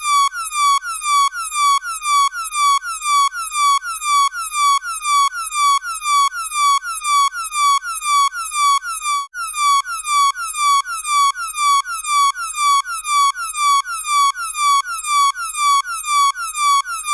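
Synthetic science-fiction alarm siren: an electronic tone sweeping in pitch over and over, about two to three sweeps a second, with a brief break about nine seconds in before it picks up again.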